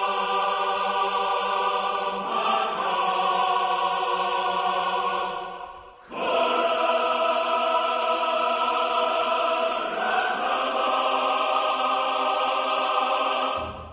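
Choir-like music of long held chords that shift every few seconds. It fades out about six seconds in and starts again straight after.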